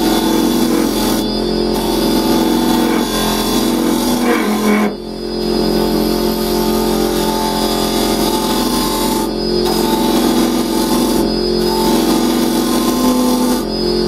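Wood lathe turning while a round carbide chisel hollows the end grain of a softwood blank: a continuous rough cutting noise with a steady hum, broken briefly about five seconds in. It is the noise that comes from cutting into end grain.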